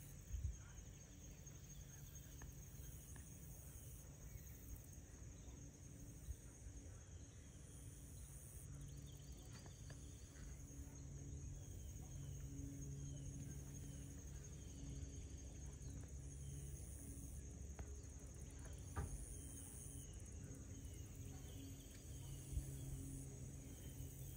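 Insects chirring in one steady high, unbroken trill, with faint short bird chirps and a low hum underneath. A few soft knocks come near the start and twice near the end.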